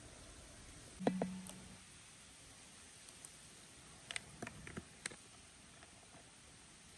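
Cooking utensils and containers being handled at a pan: a knock with a brief low ring about a second in, then several light clicks and taps a few seconds later.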